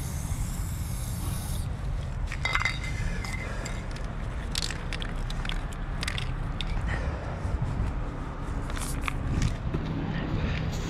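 Aerosol spray-paint can hissing in a long burst that stops about two seconds in, then a few short spurts and clicks, over a steady low rumble.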